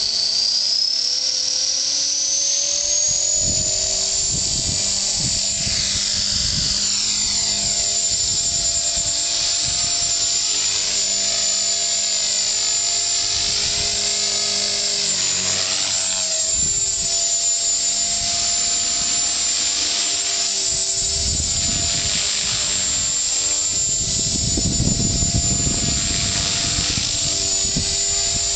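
450-size electric RC helicopter spooling up, its high motor and gear whine rising over the first few seconds and then holding steady as it flies. Gusty low buffeting of rotor wash or wind on the microphone comes and goes, strongest near the end.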